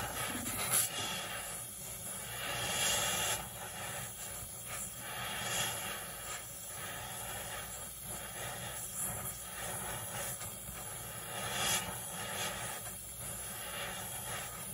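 Oxy-fuel torch flame hissing steadily as it heats the metal around a seized EGR cooler bolt, swelling louder briefly a few times.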